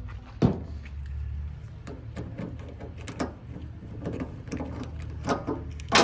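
Clunks and clicks of a plastic oil jug being handled on a tractor's sheet-metal bonnet and its filler cap being unscrewed. There is a sharp knock about half a second in, scattered smaller clicks after it, and louder knocks near the end, over a low steady hum.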